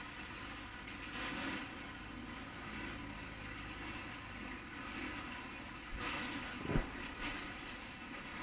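Engine of a pile-driving rig's winch running steadily while a precast concrete pile is hoisted, with scattered metallic clinks and rattles and one sharper knock about seven seconds in.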